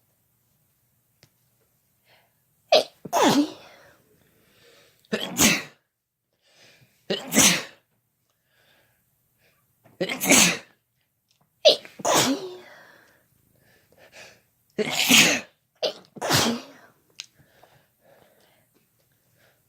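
People sneezing again and again: about seven loud sneezes a second or two apart, a few with a quick sharp catch just before the main burst.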